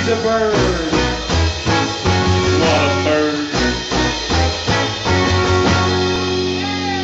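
Live country band playing an uptempo number, with electric guitar bending notes over a steady bass and drum beat.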